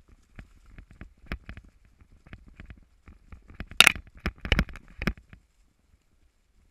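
Mountain bike rattling over a rough dirt singletrack: an irregular run of sharp knocks and clicks from the frame, chain and tyres on stones and roots, loudest about four seconds in, then dying away near the end.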